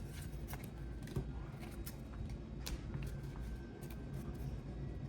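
Pokémon trading cards being handled and slid over one another, with a few faint, short clicks.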